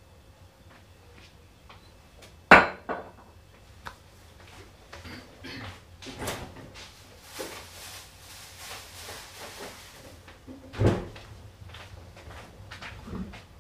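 Kitchen worktop handling noises: one sharp knock about two and a half seconds in, then scattered lighter knocks and rustling, and a second loud knock near the end.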